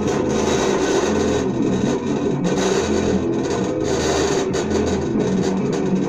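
Rock music with distorted electric guitar and a deep bass note about once a second, played from a small Bluetooth speaker shut inside a metal DVD tin.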